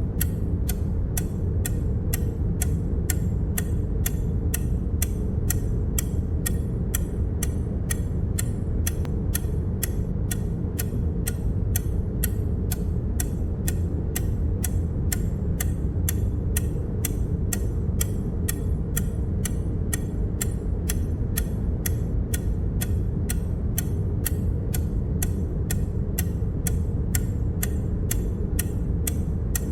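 Short, sharp click sound effects at an even pace of about two a second, each one marking the count going up by one, over a steady low rumble.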